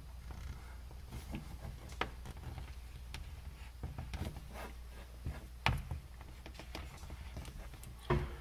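Knife cutting along the outer jacket of an extension cord: faint scraping with a few sharp clicks, over a low steady hum.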